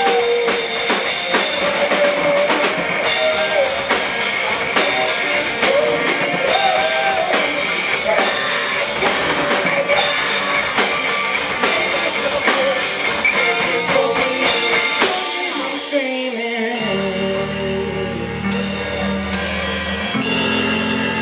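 Live rock band playing a full-band instrumental passage with drum kit and electric guitar; about sixteen seconds in the drums stop and held guitar chords ring out as the song ends.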